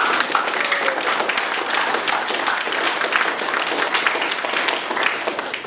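Audience applauding, a dense patter of many hands clapping at a steady level that dies away at the end.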